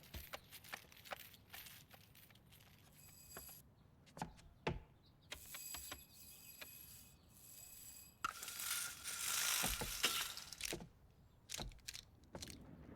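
Isolated animated-film sound effects with no dialogue or music: scattered small clicks, taps and rustles, with a louder noisy rush lasting about two seconds starting about eight seconds in.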